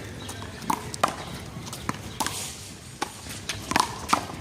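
Small rubber handball being slapped by hand and smacking off the wall and pavement in a one-wall handball rally: a quick run of sharp smacks at an uneven pace.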